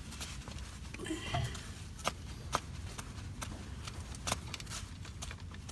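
Car jack being lowered: a handful of faint, sharp metallic clicks spaced about a second apart over a low steady rumble.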